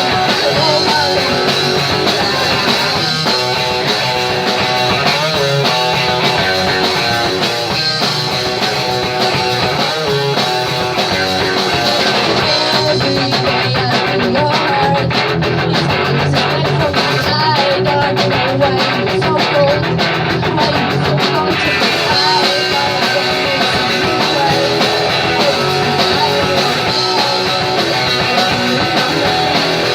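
Punk rock band playing live, with electric guitar to the fore; loud and continuous.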